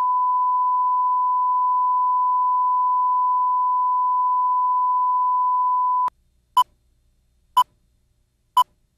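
Broadcast line-up test tone, a steady 1 kHz sine tone played with colour bars, cutting off suddenly about six seconds in. It is followed by three short countdown beeps at the same pitch, one a second apart.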